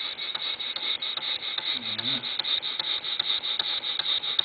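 Stuart Real model single-cylinder vertical steam engine running on compressed air, chugging away: a fast, even rhythm of exhaust air puffs.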